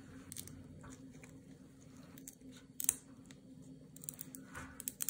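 Fine dissecting scissors snipping through the tough, rubbery tunic of a sea squirt, with soft wet squishing of the flesh. It comes as a few faint, scattered snips, the sharpest a little before the middle and several more close together near the end, over a low steady hum.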